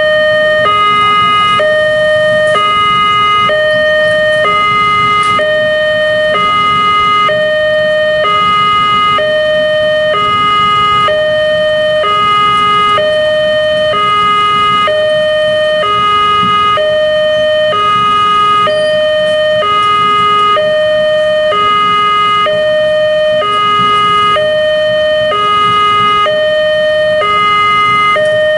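Railway level-crossing warning alarm sounding while the crossing is closed for an approaching train. It is an electronic two-tone signal, a higher and a lower tone alternating evenly with about one full cycle every one and a half seconds, and it keeps repeating.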